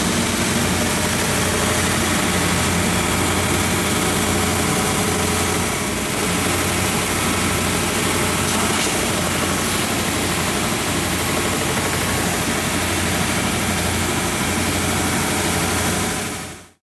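Sandingmaster KCSB-1300 51-inch single-head wide belt sander running: a steady low hum with an even hiss over it. It fades out quickly near the end.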